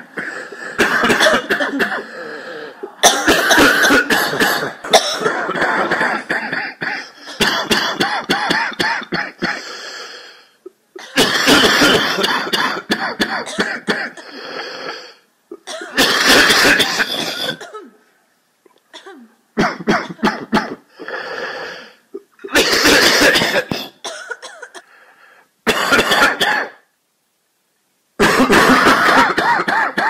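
A chorus of many overlapping coughs and throat clearings, coming in loud bursts of a few seconds with short silent gaps between them.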